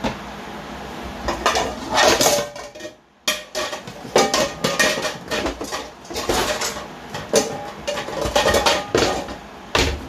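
Kitchen utensils and cookware clattering: repeated clinks and knocks of metal against pots and dishes, with a brief pause about three seconds in and a sharp knock near the end.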